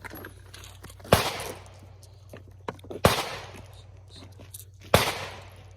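Palmetto State Armory AR-15-platform 9mm carbine firing three single shots about two seconds apart, each a sharp crack with a short echo trailing off.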